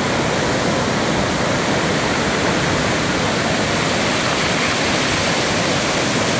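Steady roar of breaking ocean surf from a large hurricane swell, an even wash of noise with no separate events.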